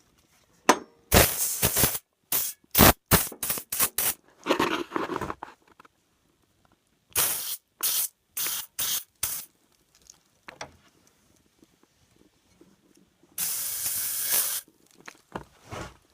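Aerosol can of PB Blaster penetrating oil sprayed in a series of short hissing bursts, with a longer burst near the end, soaking the rusted, seized table-saw blade arbor to free it.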